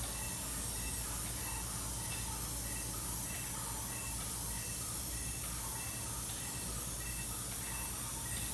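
Paint spray gun hissing steadily as it coats a wooden wall, with a low hum underneath.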